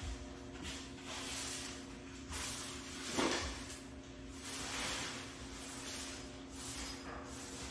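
Broom sweeping a hard floor: a series of brushing strokes, roughly one a second, with a louder scrape about three seconds in.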